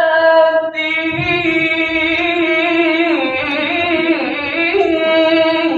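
A male qori reciting the Quran in the melodic tilawah style, holding one long unbroken phrase whose pitch wavers in ornamented turns near the middle.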